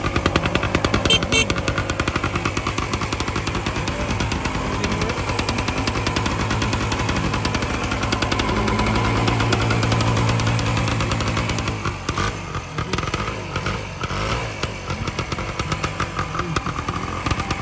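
1967 Wards Benelli small-bore two-stroke motorcycle engine running with a rapid popping exhaust note. The revs build gradually to a peak about ten seconds in, then fall back to a lower, uneven idle about twelve seconds in.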